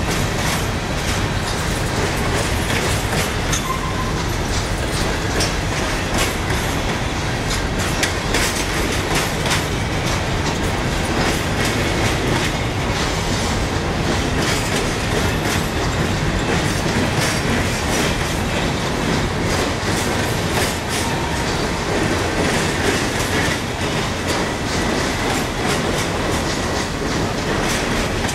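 A loaded CSX coal train's cars rolling past, wheels clacking steadily over the rail joints over a continuous rumble.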